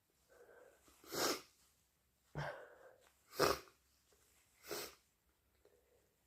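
A person sneezing hard three times, each a short, sharp blast, with an audible in-breath before the first two. The sneezes are deliberately induced.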